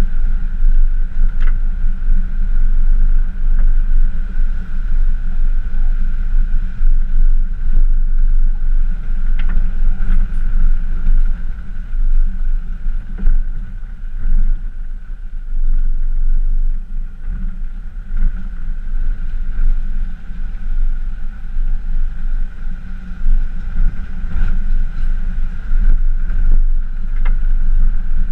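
Pickup truck driving slowly on a rough dirt track while towing an off-road camper trailer: a steady low rumble of engine and tyres, with a steady whine above it and scattered short knocks and rattles from the bumpy ground.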